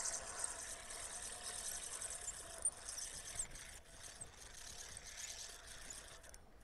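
Fishing reel being cranked, a faint steady whir with light ticking, as the line is worked free of a snag.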